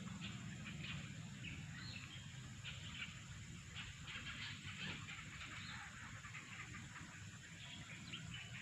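Birds calling faintly in short, scattered chirps, over a low steady hum.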